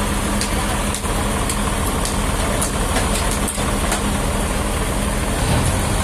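Sawmill machinery running steadily: a loud, even drone with a constant low hum.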